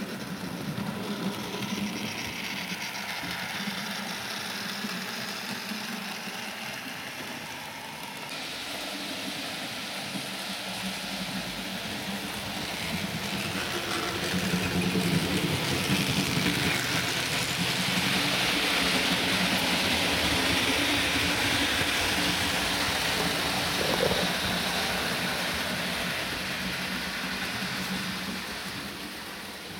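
Model trains running on the layout: a steady whirr of motors and wheels on the track, with a low hum under it. It grows louder about halfway through and eases off near the end.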